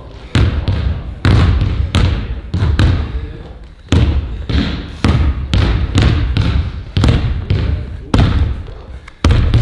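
A basketball being dribbled on a hard court: over a dozen heavy bounces at an uneven pace, each with a short echo behind it.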